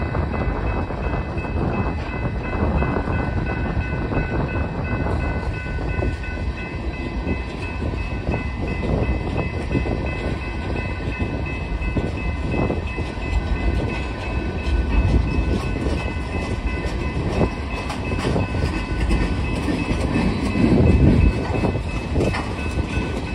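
Freight train cars rolling past a grade crossing: a steady rumble of steel wheels with clicks over the rail joints, and steady high tones above it. The low rumble swells louder near the end.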